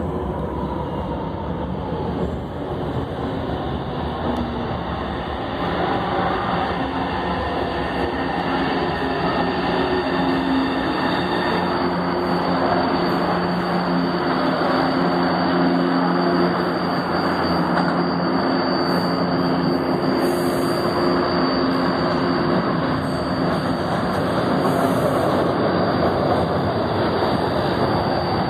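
São Paulo Metro trains in the station: a continuous rumble of train running noise that grows louder after about six seconds, with a steady low hum of several tones through the middle.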